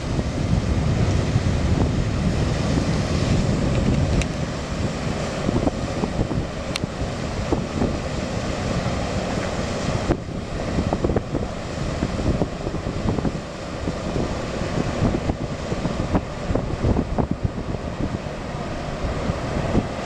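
Wind buffeting the microphone over the steady rumble of a passing tugboat's diesel engine and the rush of its bow wave and wake. The tug is running light, without a tow.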